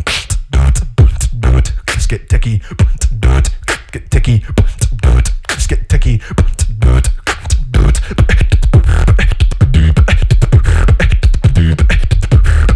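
Beatboxing into a handheld microphone: a fast, dense mouth-made drum rhythm of deep bass kicks and sharp clicks, continuous and loud.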